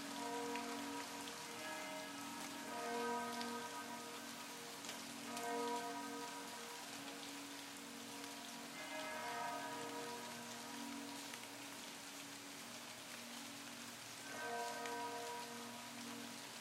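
Steady rain falling on leaves, with church bells ringing over it: a lasting low hum, and a fresh stroke every few seconds that rings out and fades.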